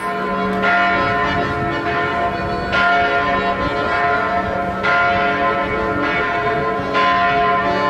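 Church bells ringing: a fresh strike about every two seconds, four in all, with the bell tones ringing on between strikes.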